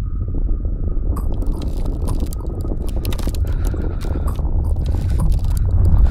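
Deep, steady rumble with wet crackling and squishing noise that comes in about a second in and goes on irregularly, like a muffled watery sound-design bed.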